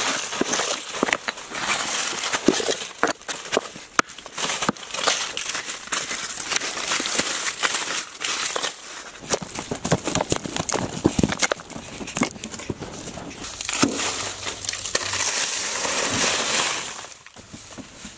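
Dry leaves crunching and dry, stony soil being dug and scraped by hand with a digging tool: a steady gritty scraping broken by many sharp knocks, dying down just before the end.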